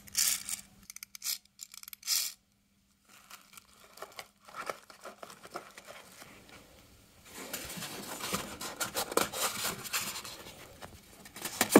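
Hand-handling noise: a few sharp plastic clicks and taps in the first couple of seconds. Then, from about seven seconds in, a continuous scraping and rustling as foam packing is worked loose inside the 3D printer.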